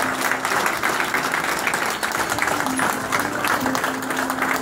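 A crowd applauding, with a simple tune of background music starting underneath and stepping from note to note.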